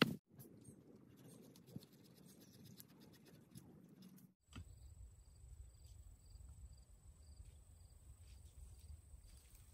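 Faint outdoor ambience. For the first four seconds there is soft rapid ticking. Then comes a low wind rumble on the microphone, with a steady high insect trill and a soft chirp repeating about twice a second.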